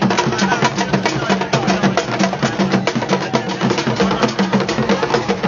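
Ghanaian drum ensemble: large drums carried on the head and beaten with sticks. They play a fast, steady beat of sharp strokes over deeper pulsing drum tones, with crowd voices beneath.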